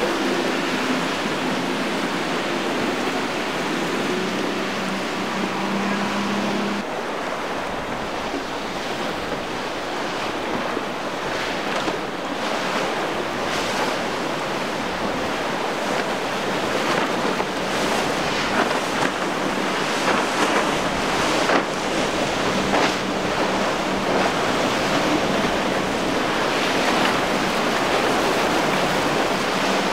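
Outboard engines of center-console boats running hard through choppy inlet water, with surf splashing and wind buffeting the microphone. A steady engine hum is clear for the first seven seconds or so, then rushing water and wind take over, with a Yamaha 300 hp outboard humming faintly underneath later on.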